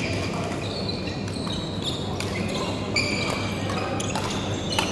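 Badminton rally sounds in an echoing sports hall: several sharp racket-on-shuttlecock hits about a second apart, short high squeaks of court shoes on the floor, and players' voices from the surrounding courts.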